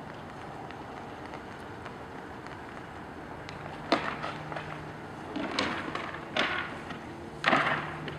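Two bull moose sparring with locked antlers: four sharp antler clacks and scrapes come in the second half, the loudest near the end, over a low steady hum.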